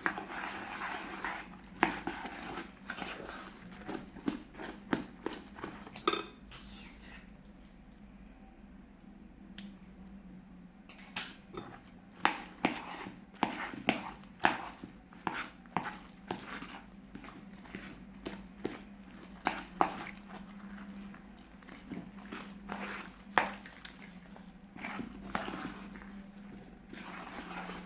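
Fluffy slime being worked by hand, giving irregular sharp clicks and pops, with a quieter stretch about a third of the way in, over a faint steady hum.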